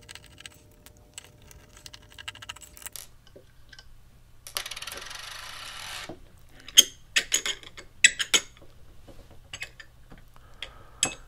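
Light clicks and small metallic clinks from hands and tools working on the platter clamp of an opened Seagate Barracuda 7200.10 hard disk, with a short scraping rustle about halfway through and a cluster of sharp clicks soon after.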